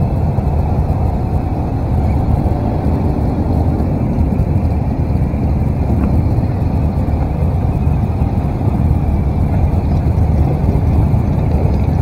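Steady low rumble of motorcycle engines mixed with wind noise, heard from a camera on a BMW R 1200 RT boxer twin riding in a close pack of motorcycles.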